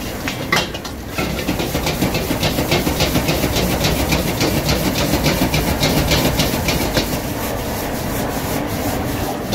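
Crab fried rice being wok-fried over a high gas flame. A metal spatula scrapes and clatters against the steel wok in quick strokes, about four or five a second, over the steady rush of the burner. It grows louder about a second in, as the tossing starts.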